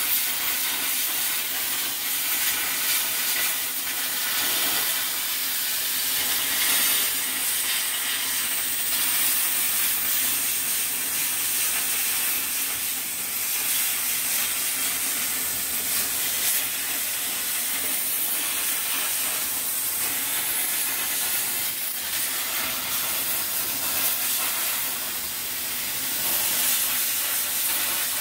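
CNC plasma cutter torch cutting sheet metal: a steady hiss of the plasma arc and its air jet, swelling a little now and then.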